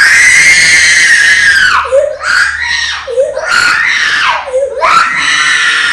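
Baby crying hard: one long, high wail lasting nearly two seconds, then a run of shorter wails, each falling in pitch at its end as the baby catches breath.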